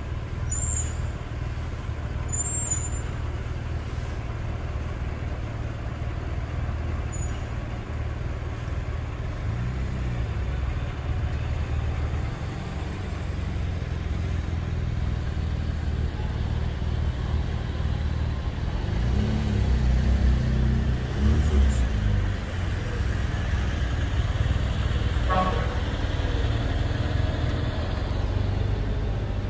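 Heavy-haul tractor unit's diesel engine running low and steady under a very heavy load, its note swelling briefly about ten seconds in and again around twenty seconds in. Short air-brake hisses near the start.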